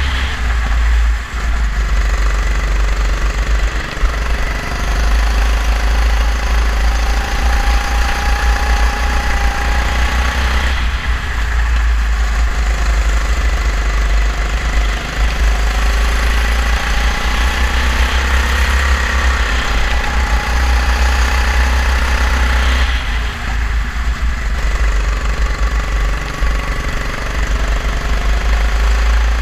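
Kart engine running hard on track, its pitch rising and falling with speed and easing off briefly a few times, over a heavy low rumble from the kart's vibration on the onboard camera.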